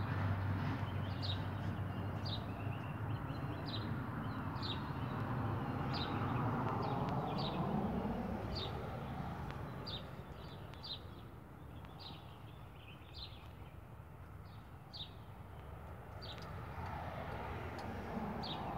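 A bird chirping over and over, about once a second, short high chirps, over a steady background rushing noise that fades after about eight seconds and builds again near the end.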